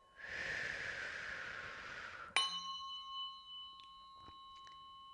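Biofield tuning fork struck about halfway in, then ringing on as a steady high chord of pure tones that slowly grows quieter. Before the strike, a soft rushing hiss lasts about two seconds.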